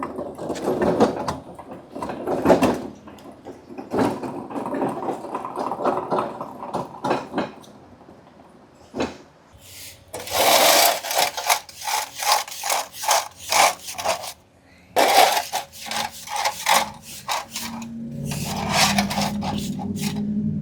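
Broom sweeping debris and metal dust across a concrete shop floor: rough scraping, then runs of quick, sharp strokes at about three to four a second. A low steady hum comes in near the end.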